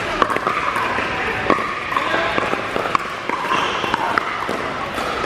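Pickleball paddles striking the plastic ball in a quick net rally: sharp pops every half second or so, some from neighbouring courts, over a hum of background voices.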